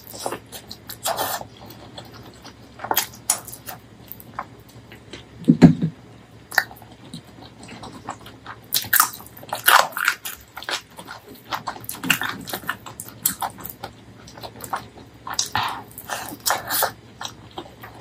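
Close-miked wet chewing and lip-smacking of someone eating spicy braised pork leg curry and rice by hand: irregular sticky smacks and clicks through the whole stretch. One louder low thud comes about five and a half seconds in.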